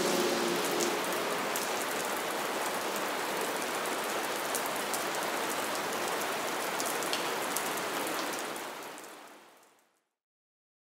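Steady rain falling, a dense hiss with scattered sharp drip ticks, fading out near the end to silence.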